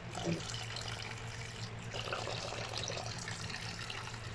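Kitchen tap running into a plastic bowl in a stainless steel sink, the stream splashing and trickling as hands rub and rinse a fish under it.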